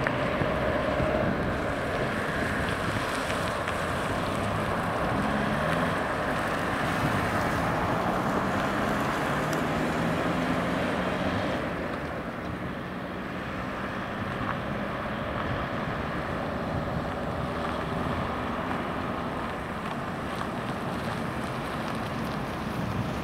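Road traffic: cars passing at close range, engines running and tyres on rough asphalt, with an engine note rising about five seconds in. Wind buffets the microphone throughout.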